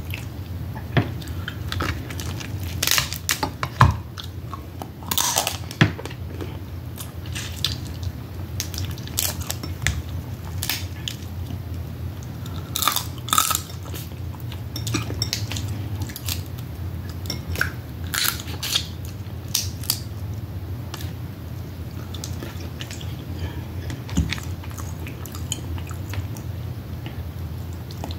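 Close-miked eating of snow crab and Dungeness crab: chewing, smacking and crunching, with irregular sharp crackles of crab shell and meat all through.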